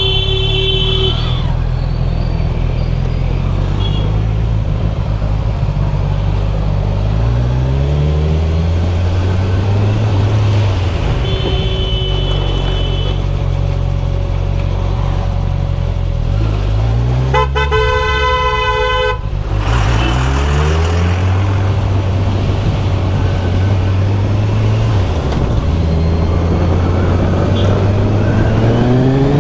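Kawasaki Z1000SX inline-four engine running at low speed, its pitch rising and falling as the bike speeds up, slows and changes gear. Vehicle horns honk over it: short toots near the start and about twelve seconds in, and one loud honk of about two seconds some seventeen seconds in.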